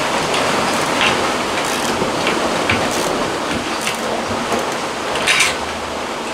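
Steady rushing of water along a sailing catamaran's hull, heard from inside the engine room. Scattered sharp metallic clicks come over it as a socket is worked onto the nuts of the steering cable's wire rope clips, which are being tightened because the cable has been slipping.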